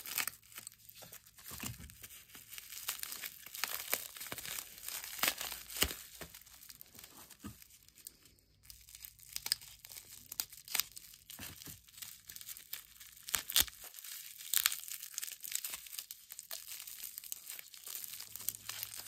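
Plastic bubble wrap crinkling and crackling as it is pulled off a small heavy stone cube by hand, in many irregular crackles.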